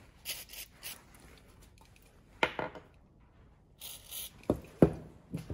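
Short hisses of an aerosol cleaner sprayed through its straw nozzle onto small metal valve parts, with a few sharp knocks of parts and the can on the bench, the loudest near the end.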